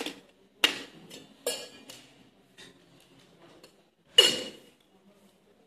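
Stainless steel cocktail shaker tins clanking and clinking as they are handled, tossed and caught in flair bartending practice: several sharp metallic knocks in the first second and a half, and the loudest, ringing clank about four seconds in.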